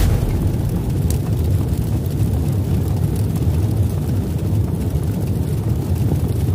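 Intro sound effect: a loud, steady, deep rumble like a drawn-out blast.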